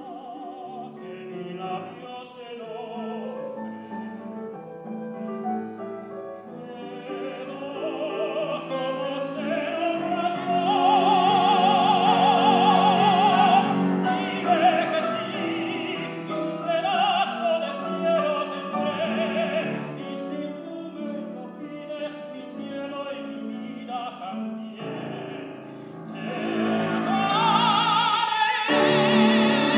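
Male operatic voice singing with vibrato to grand piano accompaniment. The voice swells to a loud held note about eleven seconds in, eases off, then builds again to loud high notes near the end.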